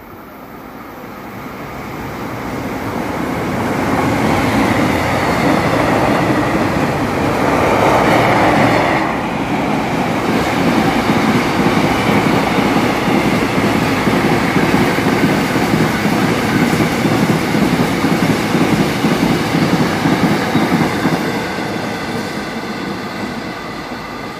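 Freight train of covered wagons running past on the main line, a steady rolling rumble of wheels on rail. It builds over the first few seconds, has a louder rush that cuts off sharply about nine seconds in, holds steady, then fades near the end as the train moves away.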